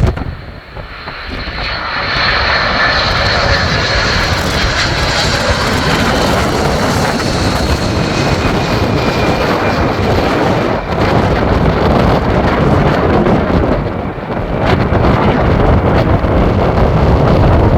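Boeing 747's four jet engines on low approach passing overhead: a high fan whine that falls in pitch over the first few seconds, then a loud, steady jet roar. Strong wind buffets the microphone throughout.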